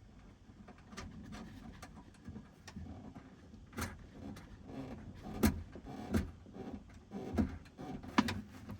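Irregular small clicks and knocks of a nut being threaded by hand onto the door-handle mount inside a pickup truck's door, with a few sharper knocks about five and a half, six and eight seconds in.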